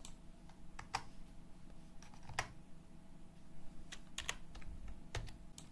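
Typing on a computer keyboard: about ten separate keystrokes at an uneven pace, over a faint steady hum.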